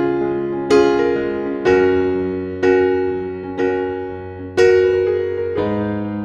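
Background music: slow electric piano chords, a new chord struck about once a second over held bass notes, each ringing and fading.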